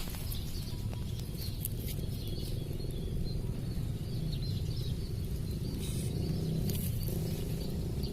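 Outdoor ambience: a steady low rumble with scattered faint bird chirps and light ticks.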